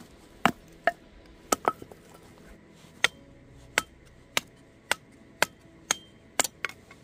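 Firewood being chopped: about a dozen sharp strikes in quick succession, roughly one every half second, some with a short ringing tone.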